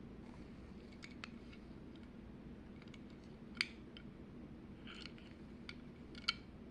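Scattered light clicks and taps from handling a small die-cast toy car and its plastic packaging, with two sharper clicks about three and a half and six seconds in, over a faint steady hum.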